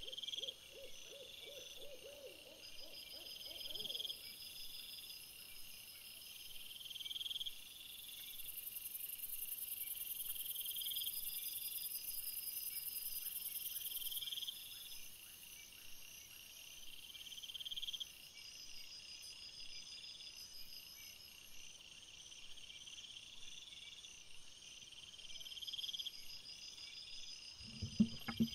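Night insect chorus: crickets chirping in steady repeated pulses over a high, thin buzz that is stronger for several seconds in the middle. A faint wavering call comes in the first few seconds, and a brief low call with a sharp click comes near the end.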